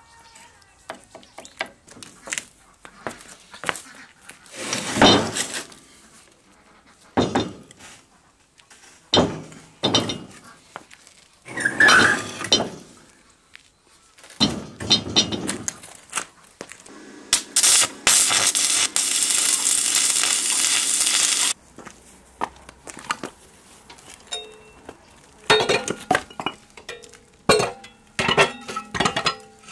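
Steel parts and hand tools being handled on a homemade lathe headstock: a string of irregular metallic clinks, knocks and scrapes. About two-thirds of the way through, a steady mechanical whir runs for about four seconds and then stops suddenly.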